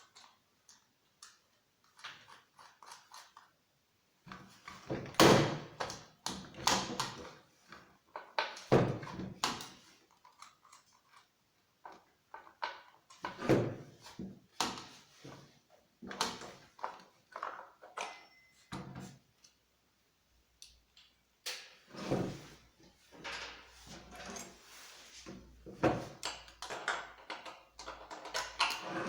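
Irregular knocks, scrapes and rustles of objects being handled, coming in clusters with short pauses; no engine running.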